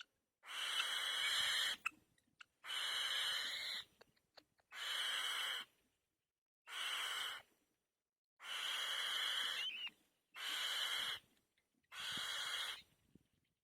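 Nestling bird giving harsh, hissing begging calls: seven long hisses in a row, each about a second long, with short pauses between them.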